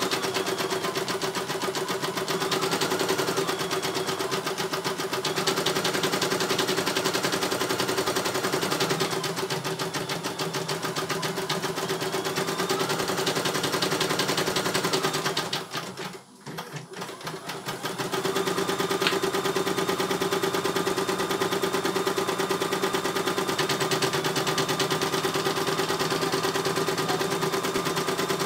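CNY E900 embroidery machine stitching: a fast, even clatter of needle strokes over a steady hum. About sixteen seconds in it winds down and stops for a moment, then starts stitching again.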